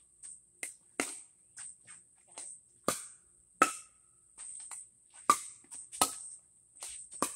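Pickleball rally: sharp hollow pocks of paddles striking the plastic ball, about half a dozen loud ones, with lighter clicks between them. A steady high-pitched drone runs underneath.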